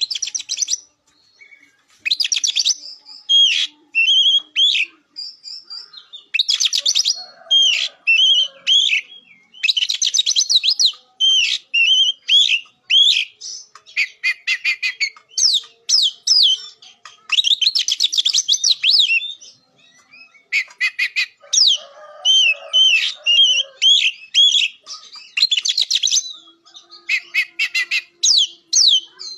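Oriental magpie-robin in full song: loud phrases of rapid buzzy trills alternating with sharp, slurred whistles, broken by short pauses.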